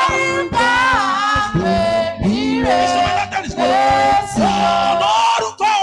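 Church worship music: voices singing a praise song, holding notes and gliding between them.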